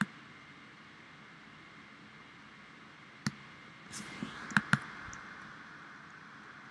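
Computer mouse button clicks over a faint steady hiss: a click at the start, another about three seconds in, then a quick pair of clicks about a second and a half later.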